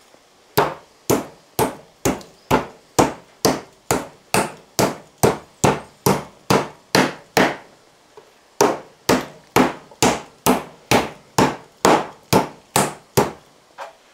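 Schnitzel meat being pounded thin and soft with a meat mallet: regular heavy strikes, about two a second, with a short break midway.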